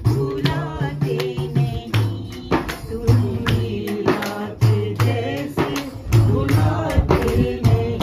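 Group devotional singing, with a hand-struck frame drum keeping a steady beat.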